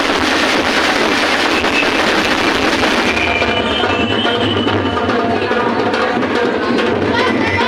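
Loud music driven by percussion. A dense, noisy wash fills the first three seconds or so, then clearer held pitched notes come in over the beat.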